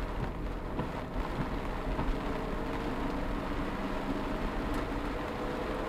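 Car driving on a rain-wet road, heard from inside the cabin: steady engine and road noise.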